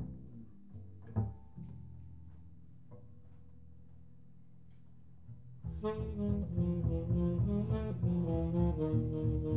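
Tenor saxophone and double bass duet: low double bass notes, one plucked about a second in, ring on quietly, then about six seconds in the tenor saxophone comes in loud with a line of changing notes over the bass.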